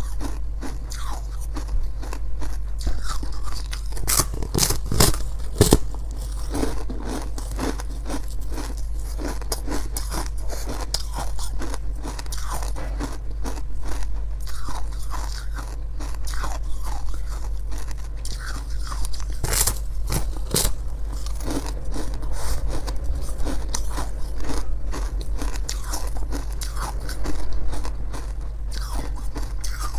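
Close-miked biting and crunching of a thin sheet of frozen buckwheat-flour ice: a dense run of crisp cracking snaps as the edge breaks off, then chewing, with heavier bites about five seconds in and around twenty seconds in.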